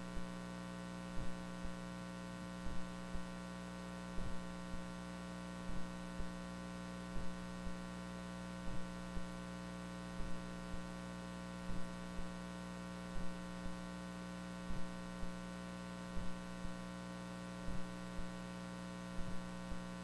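Steady electrical mains hum with a soft double thump that repeats about every second and a half.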